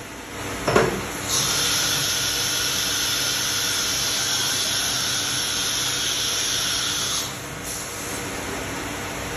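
CNC router spindle cutting wood: a steady high-pitched whine that starts abruptly just over a second in and stops about six seconds later, over continuous machine noise, with a sharp knock near the start.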